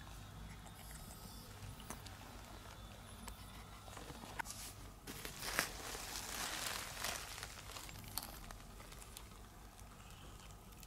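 A cat eating wet food, with faint scattered small clicks of chewing and licking and a brief rustle about halfway through.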